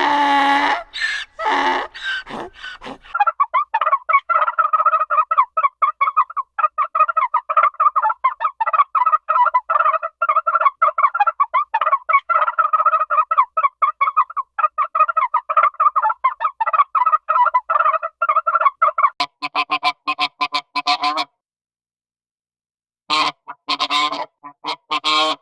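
Waterfowl calling: a flock's rapid, chattering runs of short honking notes, followed near the end by a few louder separate calls with a short silent gap between them. A different, lower animal call opens the stretch.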